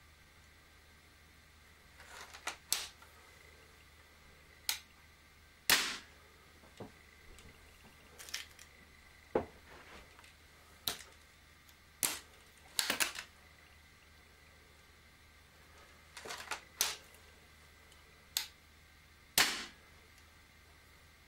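Weihrauch HW99 break-barrel air rifle being handled: a string of sharp clicks and clacks, spread unevenly, as the barrel is broken open, loaded and snapped shut and the rifle is brought up to aim. Two clacks, about six seconds in and near the end, are louder than the rest.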